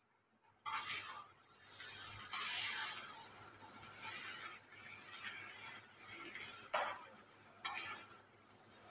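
Boiled chow mein noodles being stir-fried and tossed in a hot wok: a spatula scrapes against the pan four times, with the noodles sizzling between strokes.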